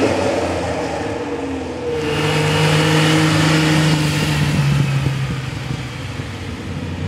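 A Ferrari Testarossa's flat-12 accelerating away, its note falling and fading. About two seconds in, a Ferrari 365 GTB/4 Daytona's V12 passes close with a steady engine note, loudest for a couple of seconds, then fading as it drives off.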